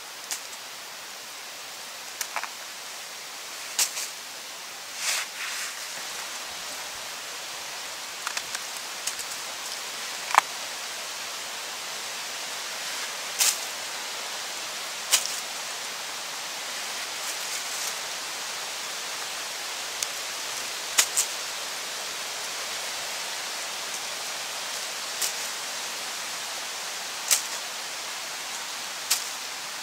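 A small knife cutting and scraping a freshly picked mushroom: a dozen or so short, sharp clicks and scrapes scattered at irregular intervals over a steady hiss.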